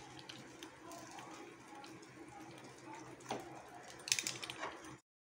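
Pizza-cutter wheel rolling and crunching through a crisp paratha and scraping a ceramic plate, a scatter of faint clicks and scrapes with a louder burst of clicking about four seconds in, over a faint steady hum. The sound cuts off abruptly just before the end.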